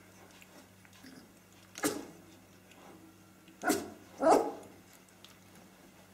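Australian Kelpie puppies, 19 days old, at play giving three short barks: one about two seconds in, then two close together near the end, the last the loudest.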